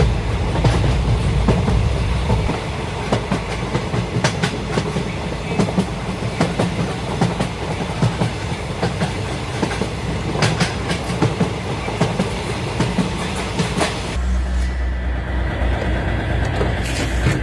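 Train running along the track, with rattling wheel clatter and many sharp clicks and knocks; about fourteen seconds in the sound changes to a deeper, steadier rumble.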